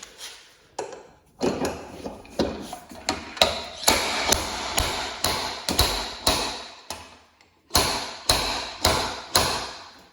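A small slide hammer on a glue dent-puller tab being struck again and again: a series of sharp metallic clacks, about two a second, with a short break about three-quarters through, each jerk pulling the dented body panel outward.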